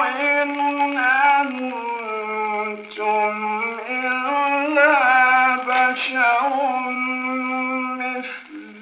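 A male Quran reciter chanting in tajwid style: one unaccompanied voice holding long drawn-out notes and winding through ornamented melodic turns. The recording is narrow and muffled, with no high end.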